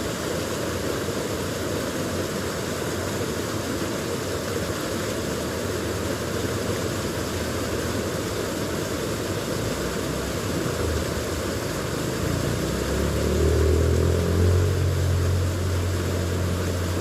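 Steady rush of stream water running over rocks, with a low engine rumble building about three quarters of the way in.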